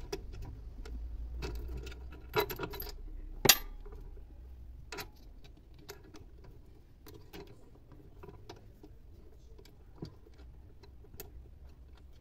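Small metal clicks and clinks of a washer and nut being fitted by hand onto a motor-mount bolt and threaded on. The sharpest clicks come about two and a half and three and a half seconds in, with lighter scattered ticks after.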